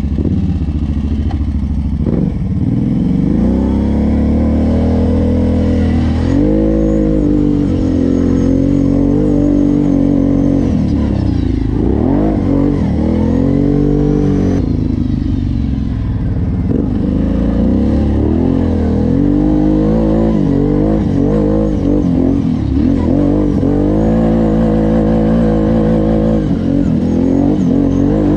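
Off-road vehicle engine running under load, its pitch rising and falling again and again as the throttle is opened and eased off.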